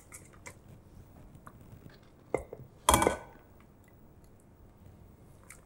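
Small clinks and scrapes of a stainless steel conical strainer against a glass bowl as fish broth is strained through it, with a sharp clink about two and a half seconds in and a short, louder clatter about three seconds in.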